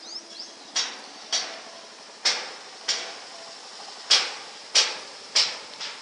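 A series of seven sharp knocks, spaced about half a second to a second apart, each ringing out briefly.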